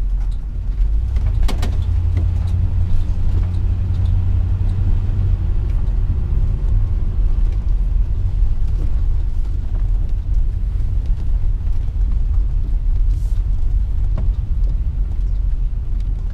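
Motorhome engine and drivetrain running with a low, steady rumble, heard inside the cab while the vehicle creeps along at low speed. There is a short rattle about a second and a half in.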